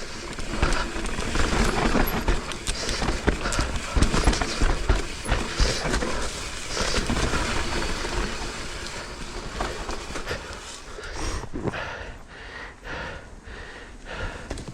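Mountain bike riding down a steep, rough dirt trail: tyres on dirt and the bike rattling and knocking over bumps, many short clatters over a steady low rumble.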